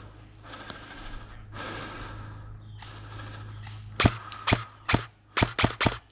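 Airsoft gun firing single shots: six sharp, loud cracks in about two seconds, starting about four seconds in. Before them there is only a low background rustle.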